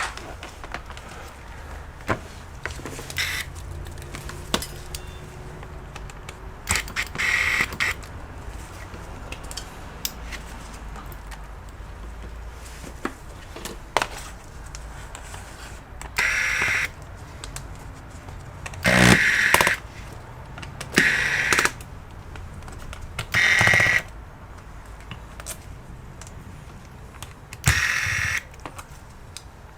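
Electric screwdriver whirring in about six short bursts of a second or so, backing out a laptop's case screws, with light clicks and knocks of handling in between.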